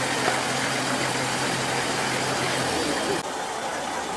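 Outdoor noise with a motor running steadily underneath, its low hum stopping about three seconds in.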